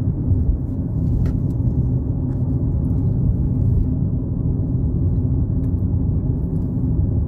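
Steady low rumble of tyre and engine noise heard inside the cabin of a car driving along a paved road.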